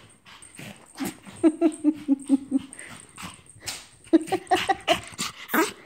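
Japanese Chin whimpering in excitement at greeting its owner: two runs of quick, stuttering whimpers, the first about a second and a half in and the second about four seconds in, among short scuffling noises.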